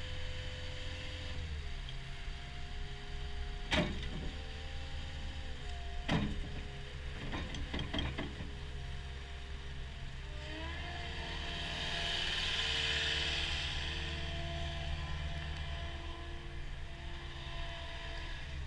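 Cat 289D compact track loader's diesel engine running, its pitch dropping a couple of seconds in and rising again about ten seconds in, with a hiss and whine as the loader arms and bucket are worked. Two sharp metallic clanks, the loudest sounds, come about four and six seconds in, followed by a run of lighter clatters.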